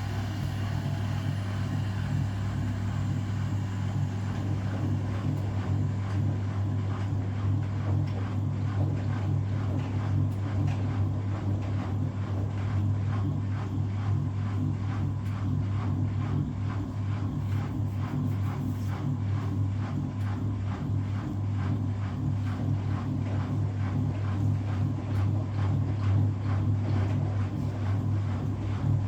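Washing machines running mid-cycle: a steady motor hum with faint regular strokes about twice a second from the turning drum.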